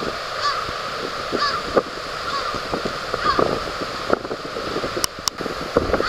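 Large-billed crow cawing a few times, the caws about a second apart, over a steady rush of wind and surf.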